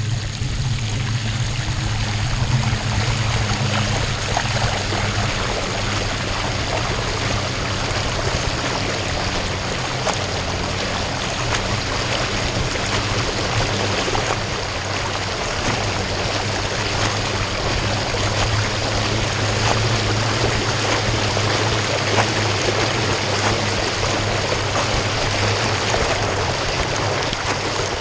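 Bicycle wheels ploughing through floodwater above the hubs, giving a continuous rushing splash of churned water.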